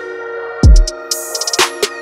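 Background electronic music with a steady beat: deep, falling bass hits and quick bright ticks over sustained synth tones.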